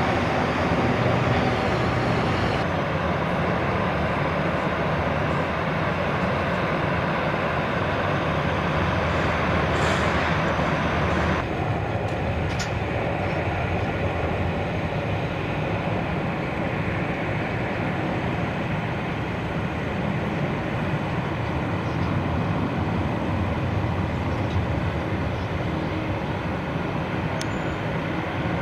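Jet airliner engines running, a steady, dense rush of noise that changes abruptly twice, about two and a half and eleven and a half seconds in.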